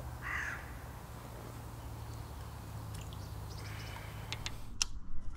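A float fishing rod and reel being cast out and handled: a few sharp clicks from the reel and rod near the end, over a steady low background rumble.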